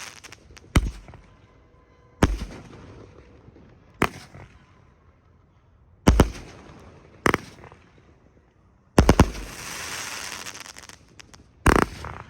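Grenade Fireworks 'Vengeance' 36-shot consumer firework cake firing: about seven sharp flash-break bangs, roughly one to two seconds apart, some trailing off in a hiss that lasts a second or two.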